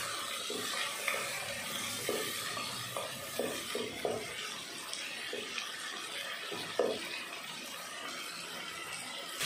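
Shallots and tomato pieces sizzling in hot oil in a pot, stirred with a wooden spatula that knocks and scrapes against the pot now and then.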